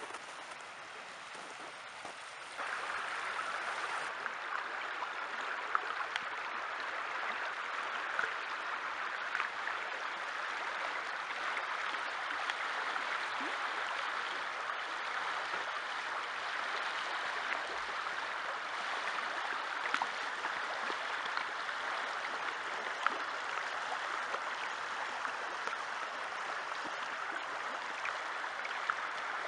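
Shallow river water running over a stony riffle, a steady rushing babble that gets louder about two and a half seconds in, with small scattered ticks.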